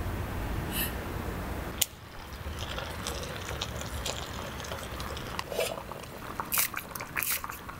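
From about two seconds in, kimchi stew simmers in a metal mess tin over a portable gas burner, with a soft hiss and a few light metal clicks as the tin's lid is handled.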